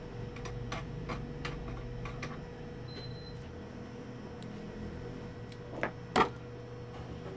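Small clicks and taps from fingers and tweezers handling a thin jumper wire against a circuit board. There is a quick run of light clicks in the first few seconds, then two sharper clicks about six seconds in, the second the loudest. A faint steady hum runs underneath.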